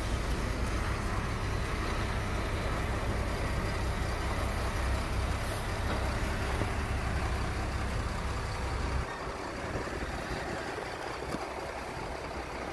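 Heavy diesel engine running hard with a deep, steady rumble during an attempt to pull a stuck truck free. The rumble drops away suddenly about nine seconds in.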